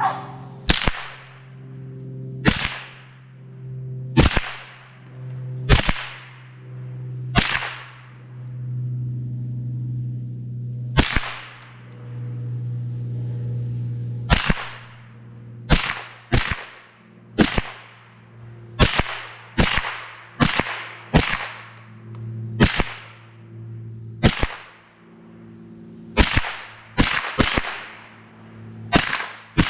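Rifle shots from an AR-15 fitted with a CMMG .22LR conversion kit: about two dozen sharp cracks. They come about every second and a half at first, then quicker and more irregular over the second half, under a steady low hum.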